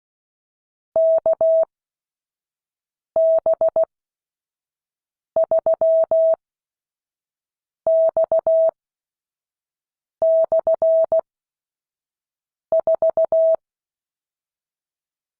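Morse code sent as a clean beep at one steady pitch. Six characters are heard, each a quick run of dots and dashes, with about two seconds of silence between characters: slow, widely spaced practice sending for copying by ear.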